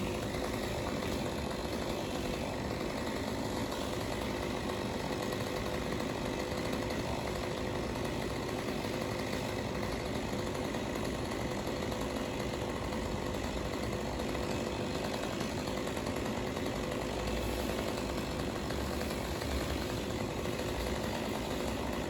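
Engine of tree-work power equipment running steadily at an even pitch, without revving up or down.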